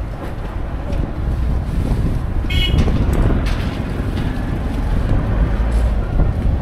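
Strong wind gusting over the microphone, a steady low rumble with scattered knocks. A brief high squeak about two and a half seconds in.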